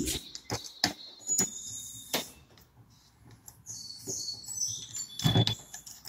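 Screwdriver backing the screws out of a door deadbolt: scattered small metal clicks and scrapes, with a few thin, high squeaks near the middle.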